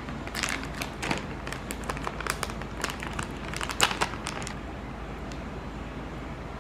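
Plastic pouch of gummy jelly crinkling and crackling as it is handled and a piece is taken out. The crinkles come in a quick run that stops a little after four seconds, loudest just before it stops.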